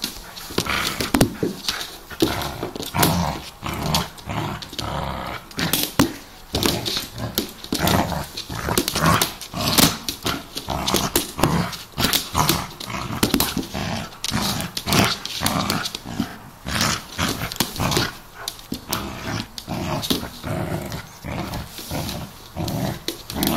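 Springer spaniel puppy playing excitedly right against the phone: a busy, irregular run of short dog noises, mixed with many sharp knocks and the rubbing of fur on the phone as it jumps at it.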